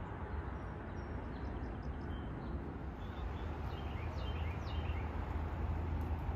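Steady outdoor background noise with a low rumble, and a bird chirping several short, quickly falling notes between about two and five seconds in.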